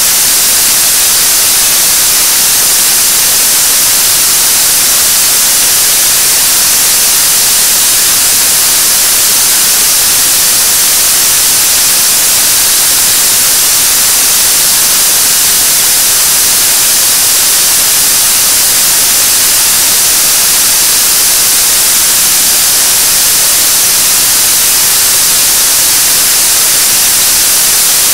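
Korean launch vehicle's 7-ton-class kerosene–liquid-oxygen third-stage rocket engine firing steadily on a test stand during a long-duration hot-fire test: a loud, even hissing noise with most of its energy in the high end and no change in level.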